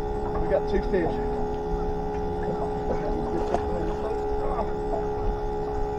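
Bait tank pump running with a steady whine made of several held tones. A few short squeaky glides in pitch sound over it in the first second or so.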